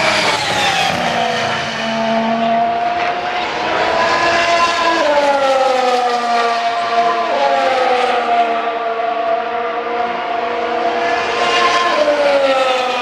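Formula One cars' 1.6-litre turbocharged V6 hybrid engines going past at racing speed one after another. The high engine note drops sharply as each car passes, several times over, with one rise under acceleration just before a drop.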